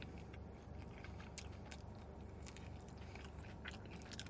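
A person chewing food close to the microphone: quiet, scattered wet mouth clicks and smacks.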